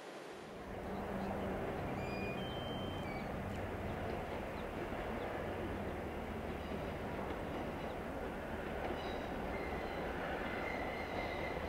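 Oigawa Railway express train running along the track, a steady rumble that comes up about a second in. A thin high wheel squeal begins near the end.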